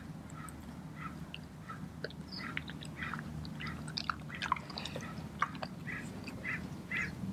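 Doberman chewing a mouthful of raw chicken: a scattered run of short wet clicks and smacks, busier in the second half, over a steady low background hum.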